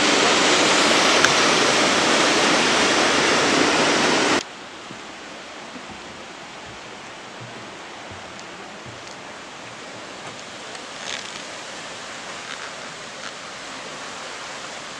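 Steady loud rushing noise that cuts off abruptly about four seconds in, leaving a quieter steady hiss with a few faint clicks.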